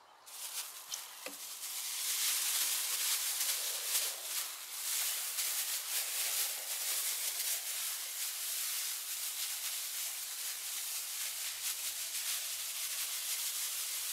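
Dry breadcrumb ground bait pouring and being shaken out of a bag into a bowl: a steady grainy hiss of falling crumbs with the bag rustling, starting suddenly.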